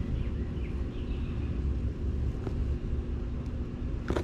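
Steady low wind rumble on the microphone over a faint steady hum, with a faint click halfway through and a sharp crunch near the end as a sulcata tortoise bites into raw pumpkin.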